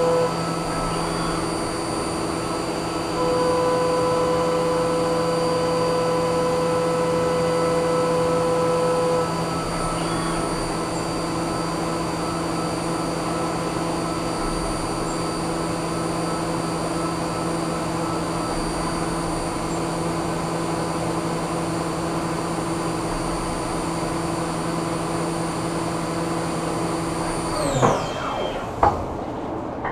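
CNC vertical mill cutting a metal block under flood coolant: a steady spindle whine over a constant coolant hiss, with an extra, louder cutting tone from about 3 to 9 seconds in. Near the end the spindle winds down in a falling whine, followed by a few sharp clunks.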